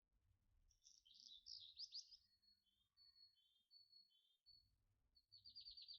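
Faint birdsong: a warbling phrase, then a string of short thin whistled notes, and a quick trill near the end.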